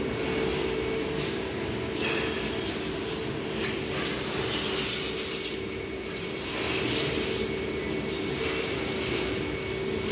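Plastic stretch film pulled off a hand-held roll as a pallet of boxes is wrapped, in about five high, hissing, screechy pulls of a second or so each. A steady low machine hum runs underneath.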